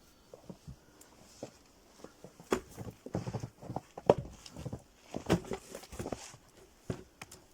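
Firewood logs being handled and split: a run of irregular wooden knocks and thuds, the sharpest about four seconds in.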